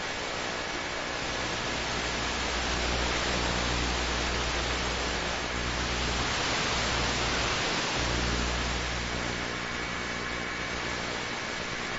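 Helicopter in flight: a steady, dense hiss of cabin and rotor noise over a low engine hum, swelling slightly in the middle.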